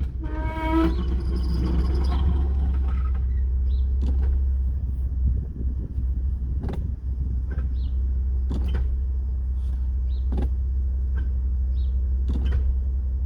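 2016 Porsche Macan S driving forward with a steady low rumble. Sharp clicks or knocks come irregularly through it, and a brief pitched tone sounds about a second in, in a car whose owner complains of a grinding noise when driving forward.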